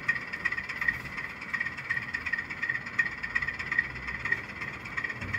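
Model train running on a layout: a steady whir with frequent faint clicks.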